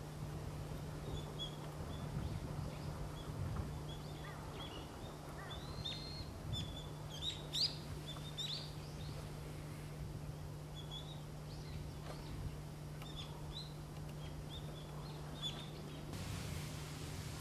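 Short, high bird chirps scattered through, with a quick run of them near the middle, over a steady low hum and background hiss.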